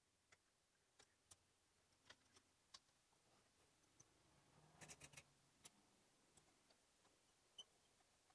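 Near silence broken by faint, scattered clicks of a hex key working the chain guide's mounting bolts on a mountain bike, with a short cluster of clicks about halfway through.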